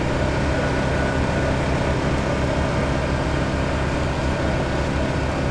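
Mercedes-AMG GT S drifting: a steady engine drone with hiss as the rear tyres spin, holding an even level throughout.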